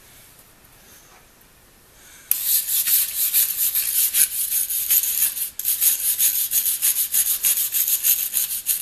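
A brush scrubbing the rusty steel handles of old blacksmith shears in a bucket of baking-soda electrolyte, scraping off loosened rust, gunk and paint. Rapid scraping strokes begin about two seconds in.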